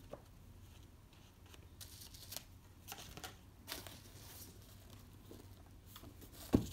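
Pages of a paperback book being turned and riffled: scattered soft paper flicks and rustles, with one louder knock near the end.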